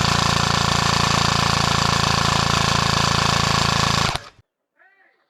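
Airsoft gun firing one long full-auto burst, a loud, very fast buzzing run of shots that stops abruptly about four seconds in.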